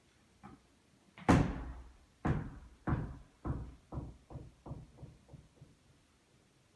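One loud knock, then a run of about nine fainter knocks that come quicker and quicker and die away, like a hard object clattering to rest.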